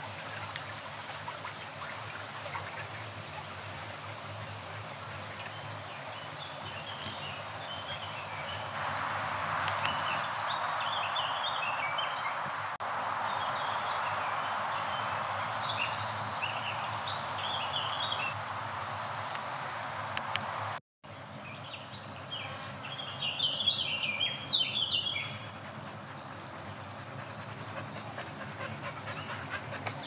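Shallow woodland brook trickling steadily, with small birds chirping and twittering over it; a denser burst of bird song comes about three-quarters of the way through.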